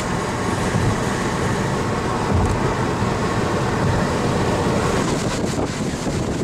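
Steady road and wind noise of a car being driven, heard from inside the cabin.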